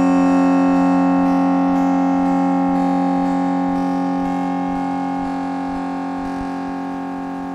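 Karplus-Strong synthesized plucked-string sound: a held tone of several steady pitches that fades slowly over the seconds, with no new plucks.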